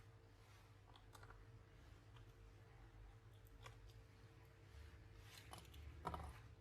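Near silence broken by a few faint, sparse clicks of a small Phillips screwdriver and tiny screws being taken out of a tablet's internal frame, the loudest near the end.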